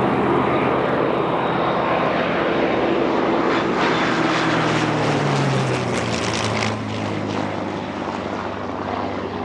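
Piston-engined propeller warbird flying past. Its engine note falls in pitch as it goes by about five to six seconds in, then gets a little quieter.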